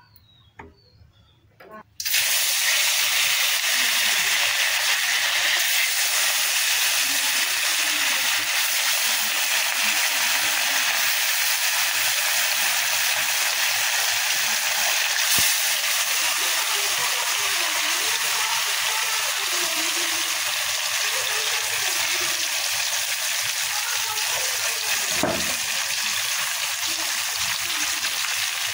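Pieces of fish frying in hot oil in a karahi: a loud, steady sizzling hiss that starts abruptly about two seconds in.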